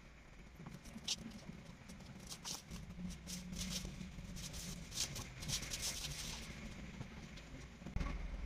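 Clear plastic wrapping crinkling and rustling in irregular bursts as it is handled and pulled off a new scooter windshield.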